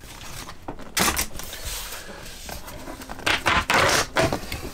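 Utility knife slitting the packing tape on a cardboard box, with cardboard scraping and crackling; louder scraping bursts about a second in and again between three and four seconds in.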